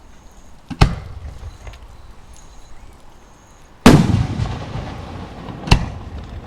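Aerial firework shells bursting: three sharp bangs, the loudest in the middle with a long rumbling echo after it.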